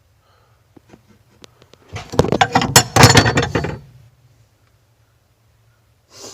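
Old hand tools clinking and rattling together as they are rummaged through in a tool chest, with scattered light clicks and a dense clatter from about two to four seconds in.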